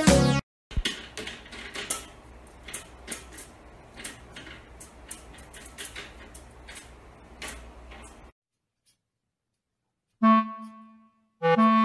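Light clicking and rattling of window-blind slats as a cat paws at them, in irregular taps over a low room hum. A short burst of background music opens the clip, and piano- and clarinet-like music comes in near the end.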